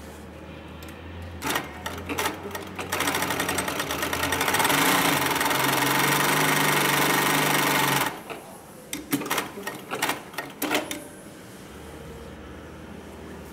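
Hightex 9518 heavy-duty walking-foot zigzag industrial sewing machine stitching through heavy cloth at high speed, building up over about a second and running for about four seconds before stopping abruptly. A low motor hum runs before and after the stitching, and a scatter of sharp clicks and knocks follows the stop.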